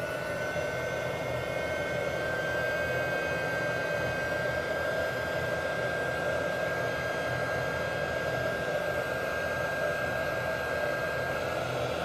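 Compact 300-watt heat gun running steadily: a rush of blown air with a thin, high, steady motor whine.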